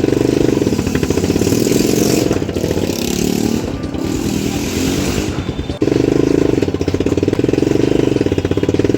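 Motorcycle engine running with a rapid, even pulse. For a few seconds in the middle the pulse goes ragged with added hiss, then it runs evenly again.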